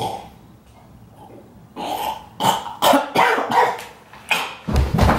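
A man coughing in a fit: a quiet start, then a run of short, harsh coughs over about three seconds as he pushes himself up from lying face-down.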